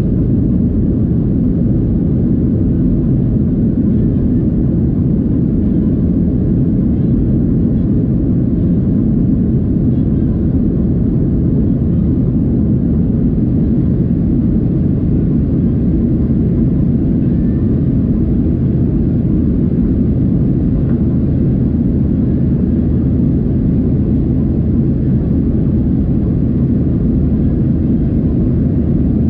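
Boeing 737 cabin noise from a window seat: the steady, loud, low rumble of the jet engines and the airflow over the fuselage, unchanging throughout.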